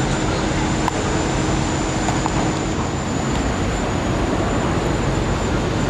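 Steady city traffic noise, a dense even rumble with a few faint clicks.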